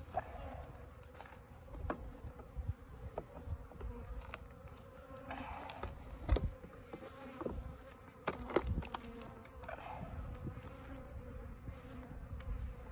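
Buzzing of a disturbed Africanized hybrid honeybee colony, a steady hum, with scattered sharp clicks and knocks as the wooden lid of the box hive is pried up.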